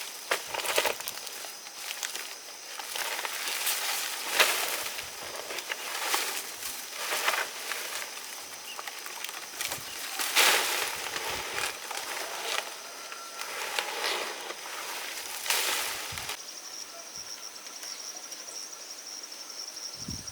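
Dry rice stalks rustling and swishing in uneven strokes, over a steady high chirring of insects. About 16 seconds in the rustling stops and only the insects go on.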